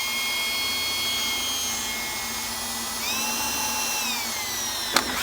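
Power drill running steadily while drilling a pilot hole through a Jeep's sheet-metal fender; its whine rises in pitch about three seconds in and drops back a second later, with a sharp click near the end.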